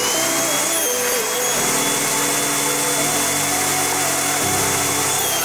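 Table saw running and cutting a spline slot through the mitered corner of a wooden box held in a sliding spline jig: a steady high whine over an even rushing noise.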